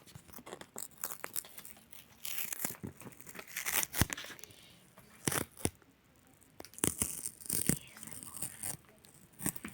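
Packaging crinkling and tearing as it is handled, in irregular rustles with a few sharp clicks.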